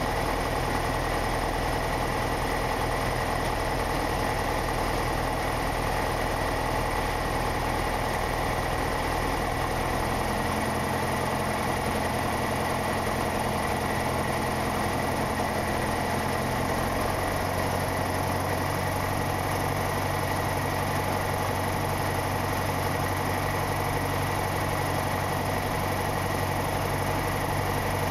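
Light aircraft's engine and propeller droning steadily, heard inside the cockpit on final approach. The low engine note shifts about a third of the way in and again a little later.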